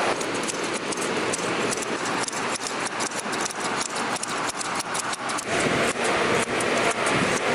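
Large steel scissors snipping through the shaggy yarn pile of a handmade carpet, several workers clipping at once. Quick, irregular sharp snips, several a second, over a steady background hiss.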